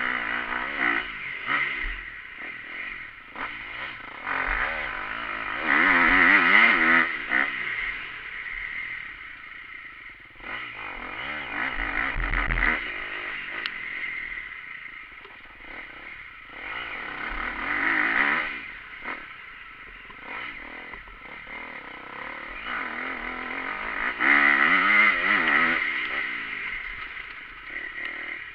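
Motocross bike engine heard from on board, revving hard and falling back again and again as the bike rides the trail. There are loud rev peaks about every six seconds, with rattling and clatter in between.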